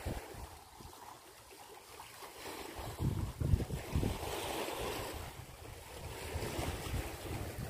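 Small sea waves washing against a rocky shore, swelling about three seconds in, with gusts of wind buffeting the microphone.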